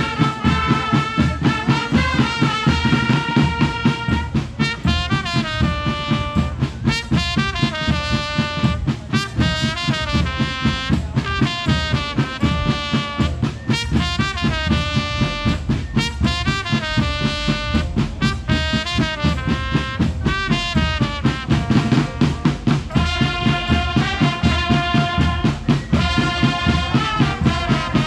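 Marching band playing live: a brass melody over a steady, regular drum beat.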